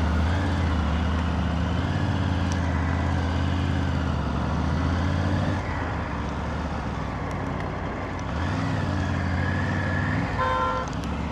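Motorcycle engine running at highway speed under a steady rush of wind. Its note drops for a couple of seconds past the middle, then picks up again. A short car horn honk sounds near the end.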